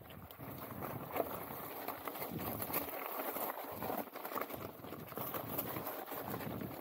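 Mountain bike rolling over a rough, stony trail: tyres crunching on loose stones and the bike rattling with a dense, steady clatter of small knocks.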